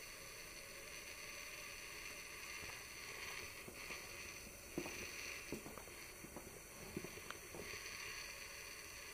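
Steady recording hiss, with a handful of faint short knocks in the middle, as of the camera being handled.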